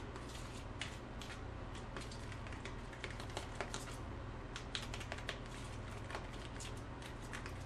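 Spoon clicking and scraping irregularly against a bowl while stirring a thick butter and maple syrup sauce, over a steady low hum.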